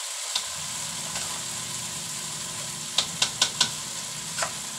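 A knife cutting peeled sponge gourd in the hand, the chunks dropping into a metal bowl: a quick run of four sharp clicks about three seconds in and one more near the end, over a steady low hum.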